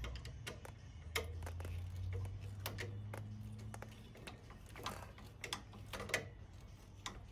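Irregular sharp clicks from a hand ratchet turning a T27 Torx bit, loosening the screws that hold a motorcycle's trim cover.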